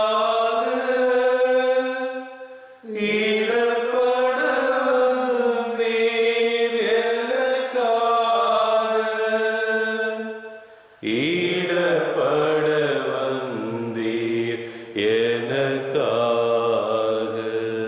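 Slow devotional hymn sung in long held notes, unaccompanied or nearly so. A higher voice sings the first ten seconds, and after a short break a lower voice takes over. It is the sung verse between two stations of the Way of the Cross.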